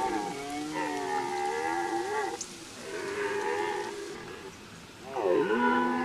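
Red deer stag roaring, a rutting call: three drawn-out calls, each one to two seconds long. The last, about five seconds in, dips sharply in pitch and rises again.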